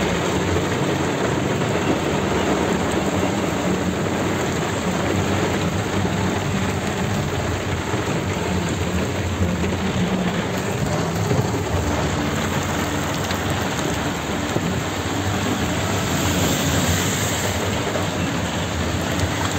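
Heavy rain drumming on a car's roof and windshield, heard from inside the cabin as a dense, steady hiss that does not let up.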